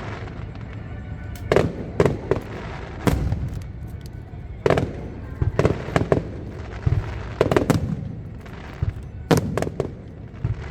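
Fireworks display: a series of sharp aerial shell bursts at irregular spacing, some in quick pairs, each bang echoing briefly over a steady low rumble.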